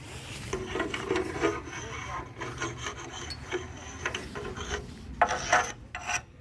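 Scraping and rubbing of stone-setting work, marble being shifted and worked into place, in uneven strokes with a few sharper, louder scrapes or knocks near the end.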